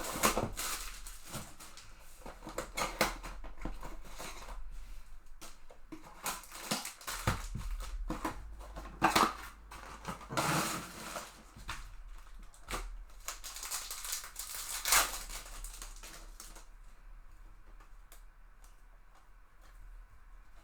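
A sealed box of trading cards being opened by hand: irregular crinkling, tearing and clicking of wrapper and cardboard, dying down after about sixteen seconds.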